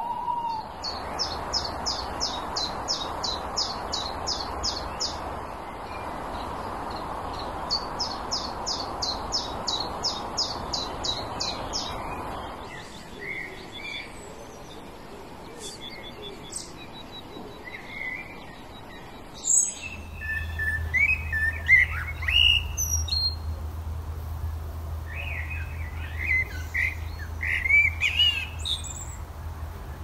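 Garden birdsong in several short recordings. A small bird sings a high run of evenly spaced notes, about four a second, twice. Then comes skylark and blackbird song, and from about two-thirds of the way in, varied warbling song over a low steady hum.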